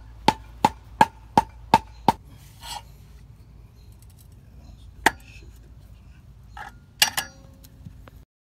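Hammer striking a new deck post's metal post base: a quick run of about seven blows, roughly three a second, each with a short metallic ring, then a single blow about five seconds in and two more close together near the end.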